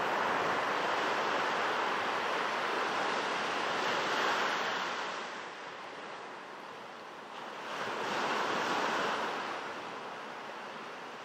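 North Sea surf washing in over a flat sandy beach: a steady rush of small breaking waves, louder for the first five seconds, easing, then swelling again briefly about eight seconds in.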